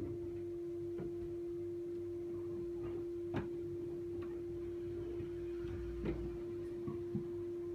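Neighbours' noise heard through the ceiling: a steady single-pitched hum that holds throughout, with faint knocks and clicks every second or two, the sharpest about three seconds in.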